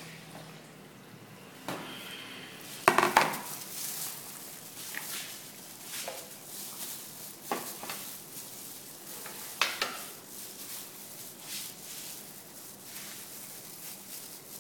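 Gloved hands tossing jellyfish salad in a plastic bowl: irregular rustling of thin plastic gloves and wet squishing of the shredded vegetables. There are sharp knocks about three seconds in and again near ten seconds.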